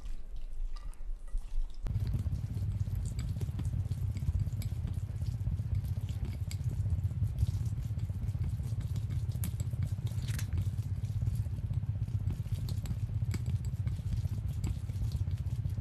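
Chopsticks mixing glass noodles through thick jajang sauce in a glass bowl: wet, sticky squelching with small crackly clicks. A steady low rumble comes in about two seconds in and stays under it.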